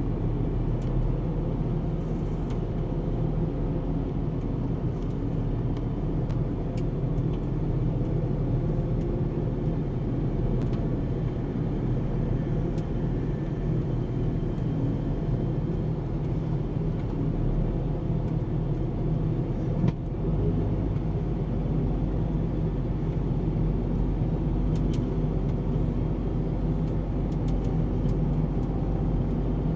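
Tractor engine running steadily under load, heard from inside the cab as a constant low drone. The drone shifts slightly about twenty seconds in, with a brief knock.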